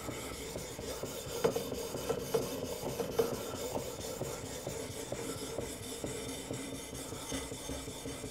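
Sharpening stone rubbed back and forth along a steel knife edge in a guided sharpening system, a steady scraping with scattered light clicks in the first half. The edge is being worked to raise a burr.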